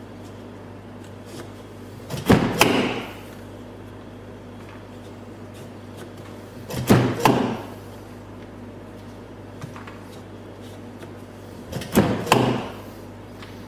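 Metal time-fuse cutting machine clacking as its cutter is brought down through the fuse. Three cuts, about five seconds apart, each a pair of quick knocks, over a low steady hum.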